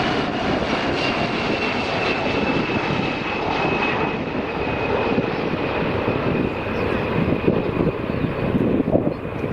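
A Boeing airliner's jet engines running: a steady high whine over a broad rushing noise, the whine drifting slightly lower.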